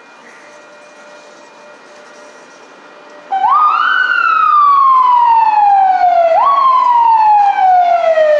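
Wailing warning siren on a railroad maintenance vehicle. About three seconds in it sweeps up quickly and falls slowly for about three seconds, then sweeps up again and falls once more.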